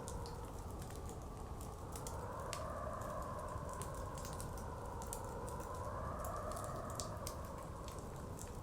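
Wood fire crackling with frequent sharp, irregular pops, over a blizzard wind that slowly rises and falls in pitch.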